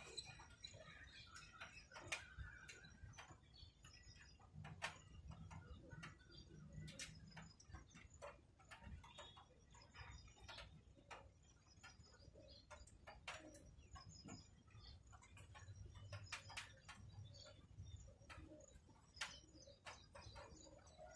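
Near silence: faint scattered clicks and ticks, with a few distant bird calls.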